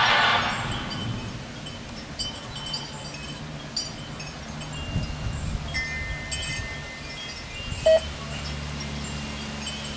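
Wind chimes ringing irregularly: scattered high, briefly held notes, with one louder, lower note about eight seconds in. A steady low hum runs underneath.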